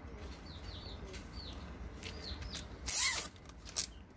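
Plastic packing strap pulled through the slots of a plastic crate: one sharp zipping scrape about three seconds in, followed by a few light clicks.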